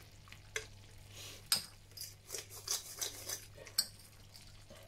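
Spoon clicking and scraping against a pan while stirring, a string of short knocks and scrapes with the sharpest about one and a half seconds in.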